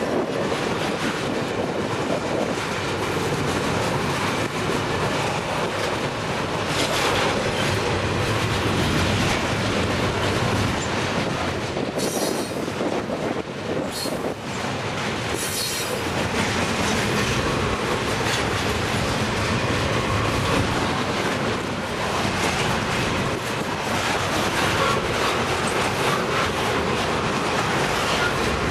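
Double-stack container well cars of a freight train rolling past at speed: a steady, loud rumble and rattle of steel wheels on the rails, with a few brief high-pitched bursts near the middle.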